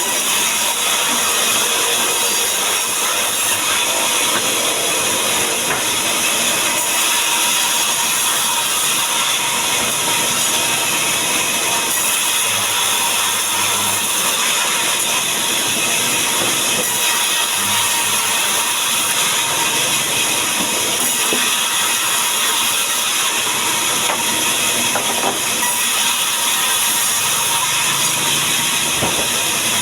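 A powered saw cutting mahogany timber into boards, running steadily with a loud even hiss and machine noise.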